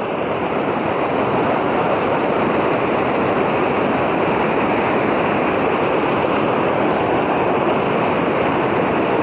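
Swift mountain stream rushing over boulders, a steady rush of white water.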